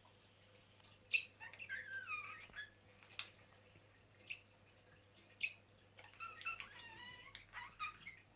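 Budgerigars chattering and warbling in two short bouts, about a second in and again after six seconds, with a few single sharp chirps in between.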